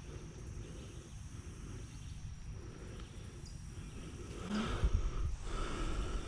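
Riverbank outdoor ambience: a steady low rumble with a thin, steady high insect drone over it. About four and a half seconds in, louder rustling and a couple of low thumps join in.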